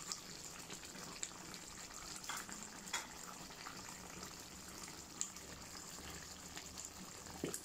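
Thick curry gravy bubbling in a pan on the heat while a wooden spatula stirs it, with a few light knocks and scrapes against the pan.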